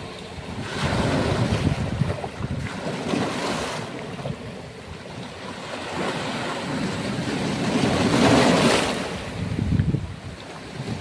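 Sea waves surging and breaking on the shore in rising and falling swells, the biggest about eight seconds in, with wind buffeting the microphone.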